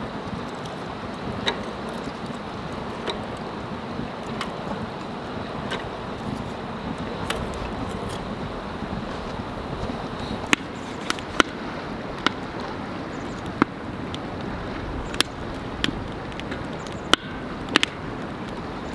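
Split wooden kindling catching and crackling in a fire pit, with sharp pops that come only now and then at first and more often in the second half, over a steady rushing background.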